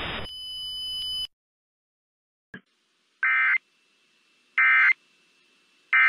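Emergency Alert System end-of-message data tones: three identical short buzzy bursts, each about a third of a second long and a little over a second apart, marking the close of the test alert. Before them, a steady high tone stops about a second in.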